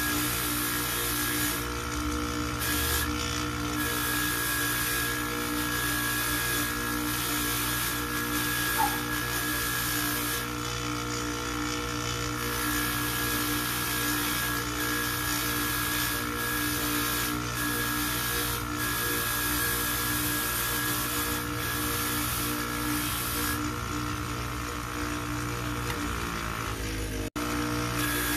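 Bench polishing motor running at a steady speed with a small buffing wheel on its threaded spindle, while a metal watch bracelet is polished against the wheel; a steady hum with a rubbing hiss that fades and returns several times. The sound cuts out for an instant near the end.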